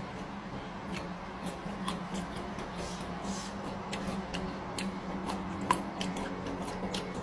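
Close-up eating sounds: a person chewing petai beans and raw vegetables with sambal, an irregular string of short wet clicks and crunches, over a steady low hum.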